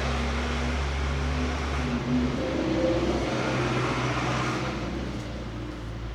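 A motor vehicle's engine running steadily with a low hum, its pitch shifting a little between about two and four seconds in, over a steady hiss.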